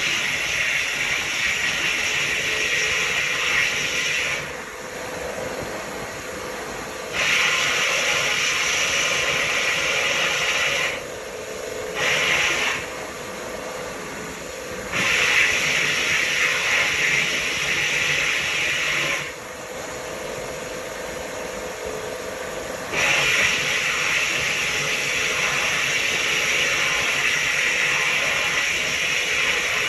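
Vapor hone blast nozzle hissing as it sprays a wet slurry of glass beads and compressed air onto a carburetor part. The blast cuts back to a quieter hiss four times for a few seconds each, the shortest about a second long, then resumes.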